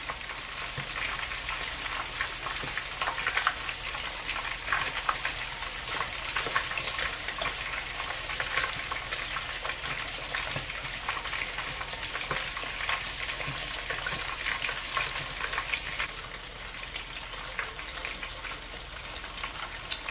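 Bacon-wrapped biscuits frying in hot oil: a steady, dense crackle and pop of sizzling oil, slightly quieter in the last few seconds.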